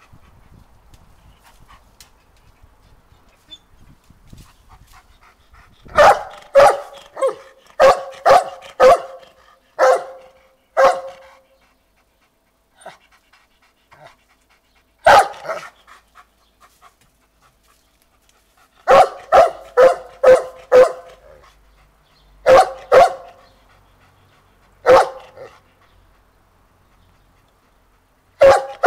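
A dog barking in bouts of several quick barks, with single barks in between; the first barks come about six seconds in.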